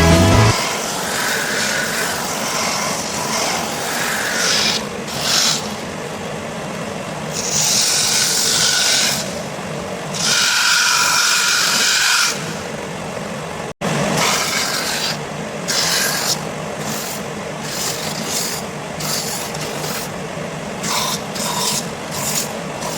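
Irregular rubbing and scraping strokes on plywood pieces, broken by a sudden cut about 14 seconds in.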